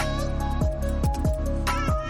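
Background electronic music: held synth notes over a deep bass, with a kick drum whose pitch drops on each hit, about three beats a second.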